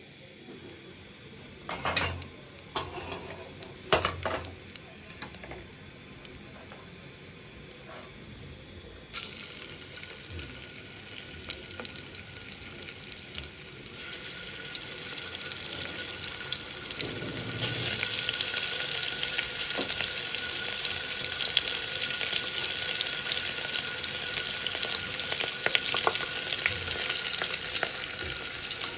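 Hot oil sizzling in an aluminium cooking pot as a spice paste and salt go in. Two sharp knocks come about two and four seconds in. The sizzle starts about nine seconds in and gets louder about eight seconds later.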